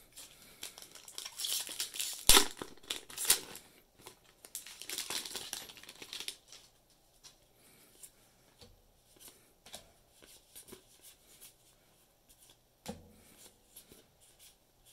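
A Kaldheim set booster's foil wrapper is torn open and crinkled, with a sharp snap about two seconds in. From about six seconds in there is softer rustling and ticking as the cards are slid and flipped through the hands.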